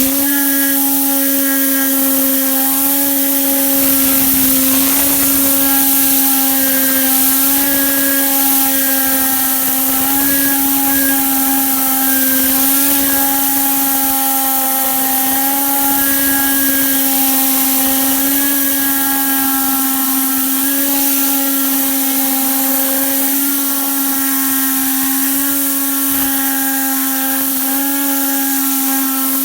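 Tornador air cleaning gun blasting compressed air and cleaning liquid, switched on at the very start: a loud, steady hiss with a steady humming whine under it.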